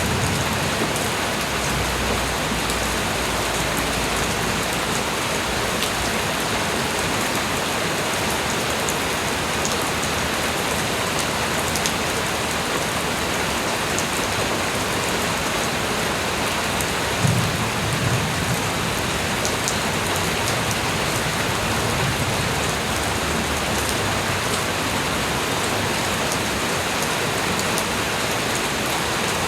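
Steady light rain falling on surfaces, with scattered sharp drop ticks. A brief low rumble comes about seventeen seconds in.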